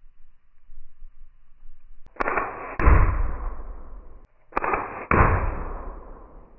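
Daisy Powerline 426 BB gun firing: four sharp shots in two quick pairs, about half a second apart within each pair, the pairs about two seconds apart.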